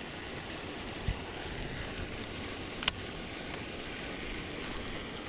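Steady outdoor wind noise on the microphone, with a dull low thump about a second in and one sharp click near the three-second mark.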